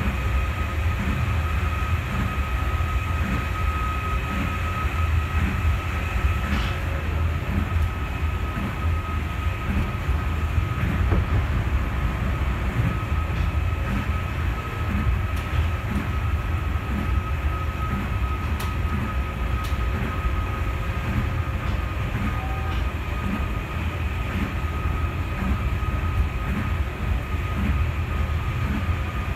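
Osaka Monorail 3000-series straddle-beam monorail car running at speed on its rubber tyres, heard from inside: a steady low rumble with a steady high whine, and a soft regular knock about once a second.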